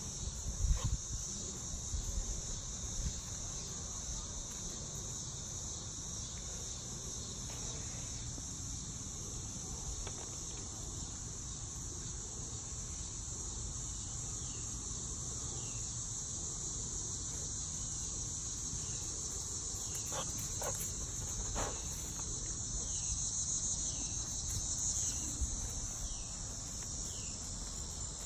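Steady, high-pitched chorus of insects over a low rumble, with a few faint clicks a little after the middle.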